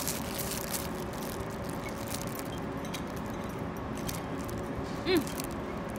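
Clear plastic bag around a gingerbread cookie crinkling faintly as it is worked open, over the steady hum and murmur of a large busy hall.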